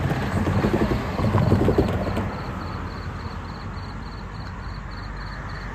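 Railroad crossing bell ringing steadily at about three strokes a second, with a car's engine and tyres passing over the crossing loudest in the first two seconds.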